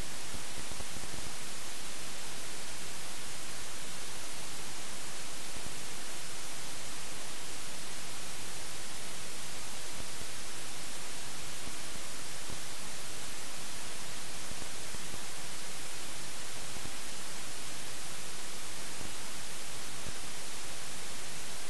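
Steady electronic static hiss, even and unchanging, with no engine or other sound in it: the dead audio track of a faulty helmet camera.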